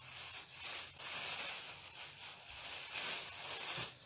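Clear plastic bag crinkling and rustling as it is shaken by hand, with the folded paper slips of a draw shuffling inside.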